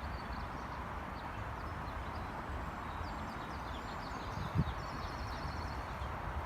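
Outdoor ambience: small birds chirping and trilling over a steady low background hum, with a single dull thump about four and a half seconds in.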